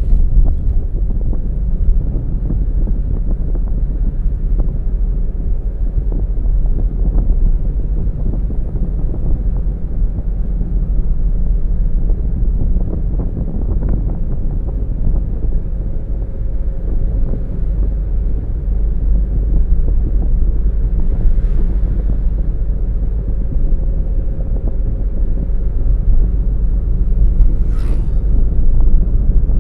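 Steady low rumble of a car on the move: road and engine noise with wind buffeting the microphone.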